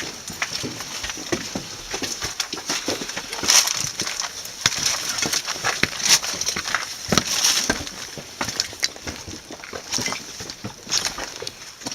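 Irregular crunching and crackling, with scattered clicks and clinks, typical of footsteps on gritty debris and broken material underfoot.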